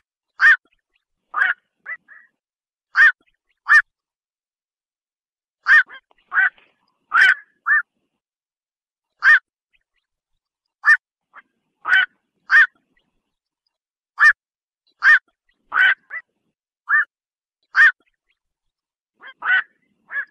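Black-crowned night heron giving short single-note calls, about one a second at uneven intervals, with silence between them.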